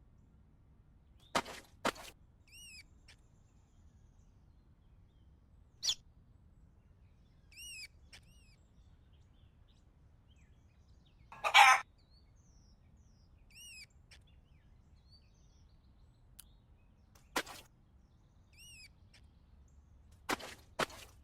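A bird giving short, single chirps every few seconds, each one quickly rising and falling. Between them come sharp clicks and taps, a quick run of them near the end, and one loud, harsh, scratchy burst about halfway through.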